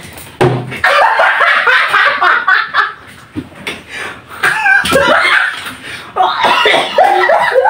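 An empty plastic water jug whacks a man's head about half a second in, a hollow thump, followed by bursts of hearty laughter; another short knock comes about five seconds in.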